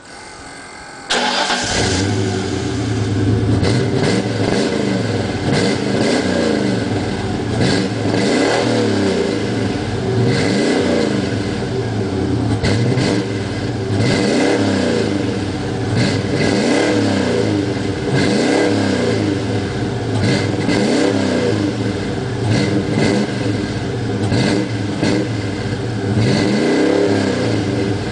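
1997 Ford Explorer's 5.0 V8 with GT40 heads, heard through a MAC 3-inch cat-back exhaust. It starts about a second in and is then revved again and again, the pitch rising and falling about every two seconds.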